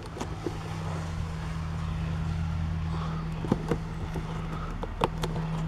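Fingers picking at tape on a cardboard and clear-plastic toy box, giving a few short sharp clicks and crinkles. A steady low hum runs underneath.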